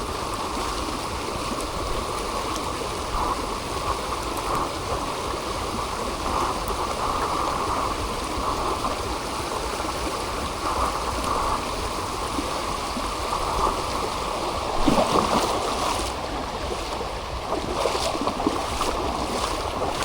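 Heavy rain and flowing water making a steady rush, with a few short knocks or splashes in the last few seconds.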